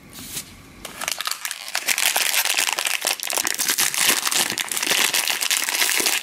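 Foil blind-bag wrapper crinkling and crackling as hands squeeze and open it, starting about a second in.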